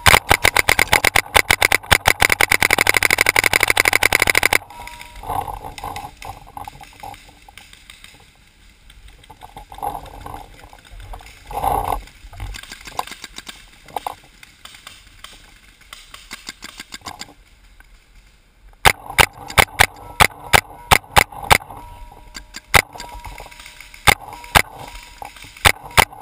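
Paintball marker firing a rapid string of shots that cuts off suddenly after about four and a half seconds. Near the end it fires again in quick volleys of sharp shots.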